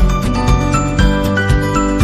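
Background music with a steady beat of about two beats a second under held melody notes.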